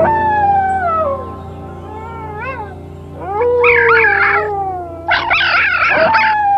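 Grey wolves howling: a long howl falling in pitch opens, then two wolves howl together at different pitches, and a chorus of quick, wavering, higher yipping howls joins in over the middle before another long falling howl near the end.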